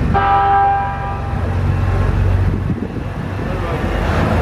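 KiHa E130 diesel railcar's horn sounding once at the start, a held chord of several steady tones lasting about a second, given as a greeting to a waving child. Under it and after it the railcar's diesel engine runs with a low rumble as the train pulls away from the platform.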